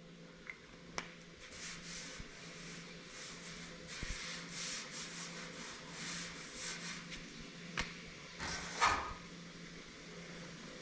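Faint, quick rubbing strokes on the sheet-steel side panel of a 1959 Chevrolet step-side truck bed, with a few light taps.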